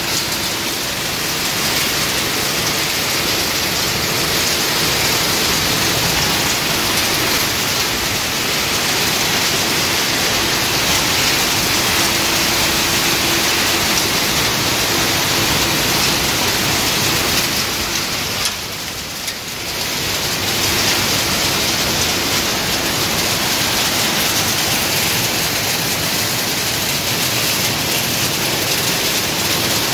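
Quartz sand sorting line running: a steady, dense hiss of machinery and streaming sand, dipping briefly about two-thirds of the way through.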